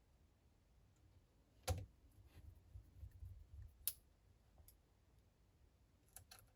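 Faint handling clicks and taps of small tools and parts on a smartphone being reassembled: a few separate sharp clicks, the loudest about two seconds in and a quick double click near the end, with soft rustling between.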